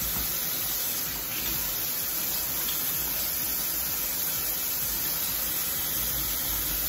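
Kitchen faucet running steadily into the sink while hands are washed.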